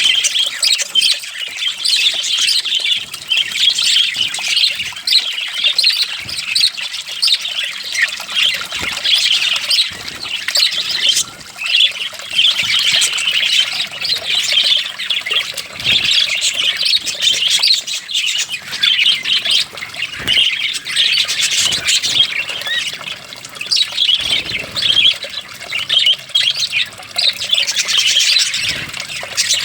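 A group of small pet parrots chattering continuously, a dense mix of rapid chirps, warbles and sharper squawks.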